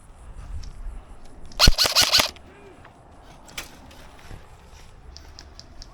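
A quick burst of about six airsoft gun shots fired in roughly half a second, a little under two seconds in, followed by a few faint scattered clicks of more distant airsoft fire.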